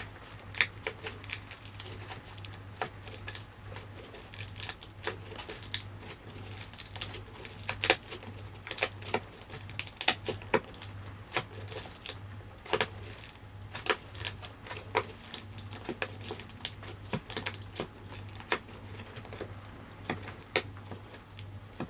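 Glue bond between a boiled RC car tyre and its wheel rim cracking as the tyre is pulled off: irregular sharp crackles and clicks, over a steady low hum.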